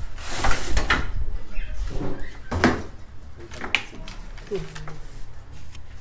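Cardboard packing carton being handled and lifted off an appliance: a sliding scrape in the first second, then several knocks and rustles of cardboard, with faint voice sounds.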